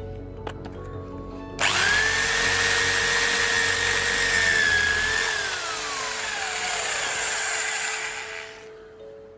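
Parkside PSBM 1100 A1 1100 W two-speed hammer drill with a masonry bit, drilling into a stone block. The motor starts suddenly about a second and a half in and runs at a steady high whine for about three and a half seconds. It is then released and winds down, its pitch falling over about three seconds.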